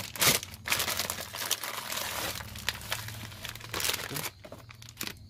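Plastic wrapping crinkling and rustling as it is handled and pulled out of a cardboard box, with a few louder crackles; it dies down in the last second.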